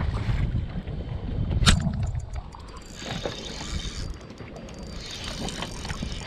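Wind buffeting the microphone over choppy lake water, with a single sharp click about two seconds in. After the click the low rumble drops away and a lighter hiss of wind and water remains.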